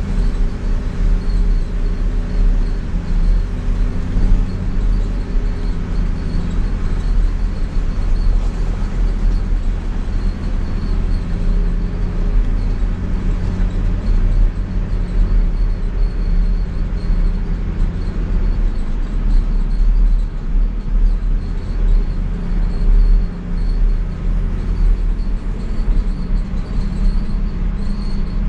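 Nissan Patrol pickup's diesel engine pulling under load up a steep hill, heard from inside the cab: a steady low drone whose pitch wavers slightly as the revs shift.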